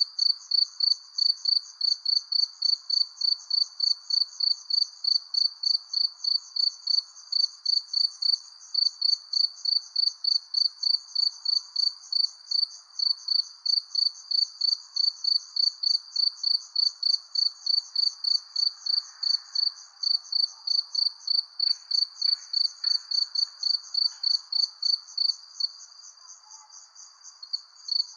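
Crickets chirping at night in a steady rhythm of about two to three high chirps a second, over a faint hiss of night ambience. Near the end the loud chirping stops for about two seconds while a softer, continuous trill carries on.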